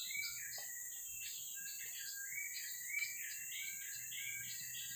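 Birds chirping in quick, short whistled notes, several a second, over a steady high-pitched drone of insects.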